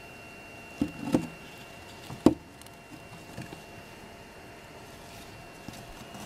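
A wooden stick knocking and scraping against the cracked crust of cooling molten rock: a few dull knocks in the first second or so, then one sharper, loudest knock about two seconds in, and a couple of light taps later.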